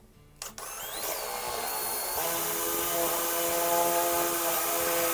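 Cordless drill boring a hole through a maple-veneered plywood box. The motor starts about half a second in with a rising whine, settles into a steady running tone, and stops near the end.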